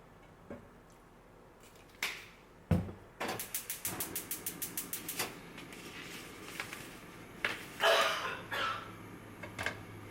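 Kitchen knife striking a cutting board: a couple of separate knocks, then a fast, even run of chopping strokes at about eight a second for two seconds, followed by a brief scraping or rustling clatter.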